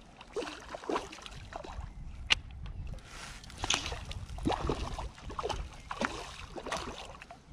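Water splashing and sloshing close to the microphone as a hooked trout thrashes at the surface, in irregular bursts, with one sharp click about two seconds in. Wind rumbles low on the microphone underneath.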